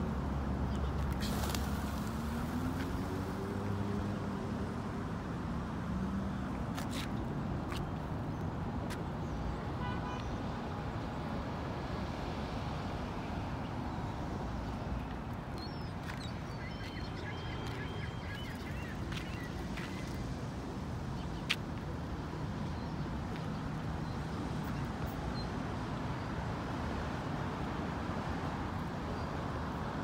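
Steady city road traffic, with a vehicle engine gliding up and down in pitch in the first few seconds. Faint high chirps come around the middle, and there is one sharp click about two-thirds in.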